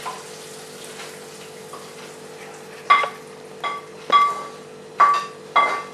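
A metal kitchen utensil knocks against a metal dish five times in the second half, each knock ringing briefly. A steady faint hum runs underneath.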